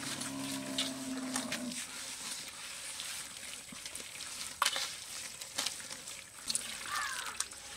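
A bare hand mixing wet curd and spice masala in a metal pot: soft squelching and scraping with scattered small clicks. A low drawn-out animal call sounds in the first two seconds.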